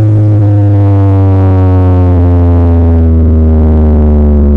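Loud, deep electronic bass tone from a carnival sound-horeg speaker system, gliding slowly and steadily down in pitch.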